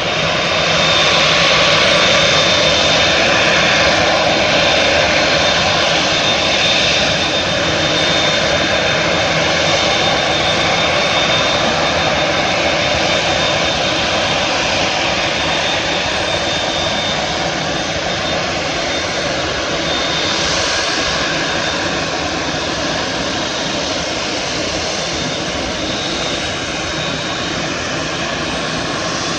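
Jet engines of a Japan Airlines Boeing 787-9 running loud and steady, with a thin high whine over the rush of the engines. Loudest about two seconds in, then easing slightly.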